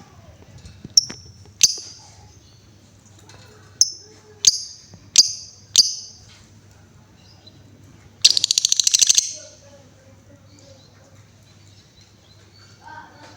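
Female lovebird calling: six sharp, high chirps, then, about 8 seconds in, a loud, rapid rattling trill about a second long, the fast 'ngetik' chatter that kicau keepers prize in a lovebird.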